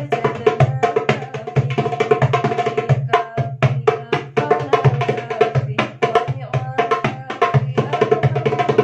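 Alexandria darbuka (Egyptian goblet drum) played by hand in a fast, continuous rhythm, several strokes a second: deep doum strokes on the middle of the head alternating with sharp, bright tek strokes near the rim.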